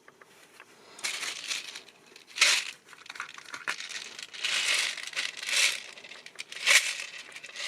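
Plastic packaging crinkling and rustling in a series of swells, loudest about two and a half seconds in and again near the end, as it is handled.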